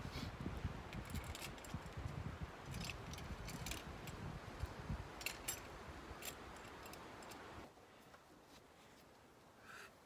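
Metal hand tools and fittings clicking and clinking as someone works on the fuel lines of an old Komatsu dozer's diesel engine, over a low rumbling background. About three-quarters of the way through the rumble drops away and only a few light clicks remain.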